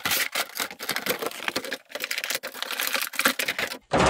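Stiff clear plastic packaging crackling and clicking as it is handled, a dense run of small sharp clicks, then a thump about four seconds in.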